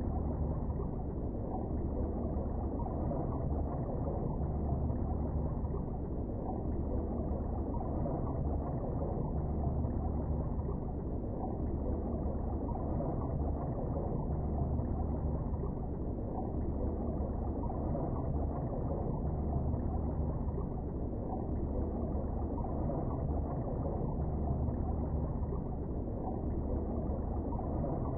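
Steady, muffled low rush of river current heard with the microphone underwater, a deep rumble with no higher sounds.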